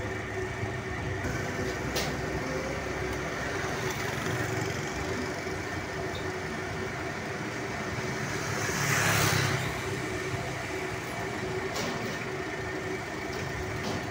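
Street traffic noise with a steady hum. A motorcycle passes close about nine seconds in, its engine swelling and then fading.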